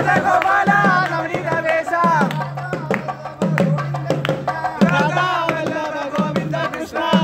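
Procession music: a drum beating low strokes that slide down in pitch, under a wavering melody line higher up.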